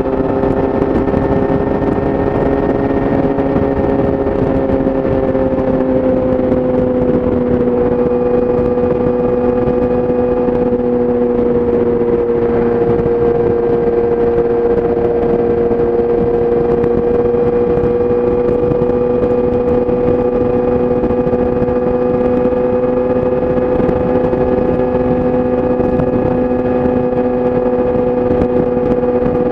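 Yamaha YZF-R6's inline-four engine through an Akrapovic exhaust, cruising at steady revs. Its pitch holds nearly constant, easing down slightly about five seconds in.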